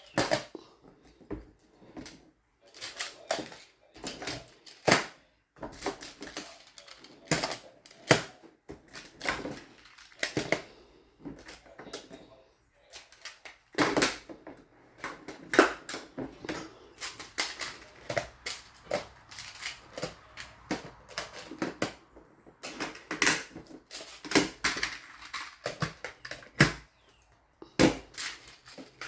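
Plastic magnetic building tiles clicking and clacking as they snap together and are set down, in an irregular run of sharp clicks throughout.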